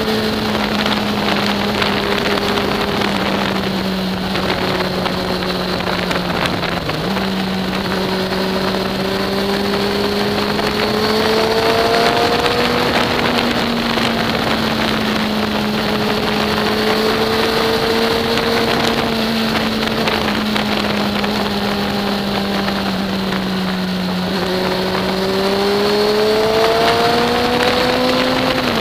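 Sport motorcycle engine pulling steadily at road speed, its drone sagging and rising gently a few times with the throttle and dipping briefly about seven seconds in. Heavy wind rush on the microphone.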